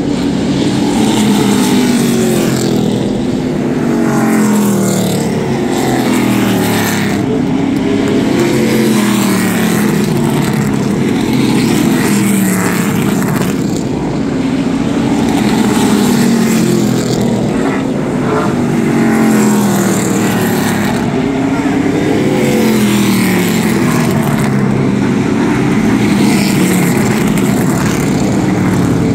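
Pack of ARCA stock cars' V8 engines racing around a short oval. Several cars are heard at once, and their pitch keeps swelling and falling as they pass every couple of seconds.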